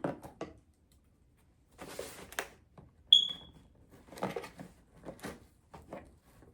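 A plastic parcel bag being handled and torn open, crinkling and rustling in short bursts. About three seconds in, one short, high-pitched electronic chirp sounds and quickly fades; it is the loudest sound here.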